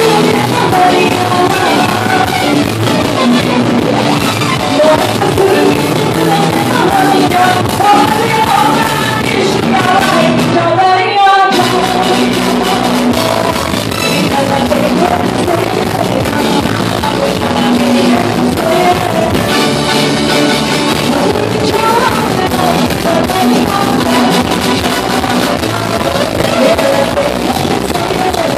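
Live chutney band music: a woman singing into a microphone over keyboards and drums. The bass and drums drop out for a moment about eleven seconds in.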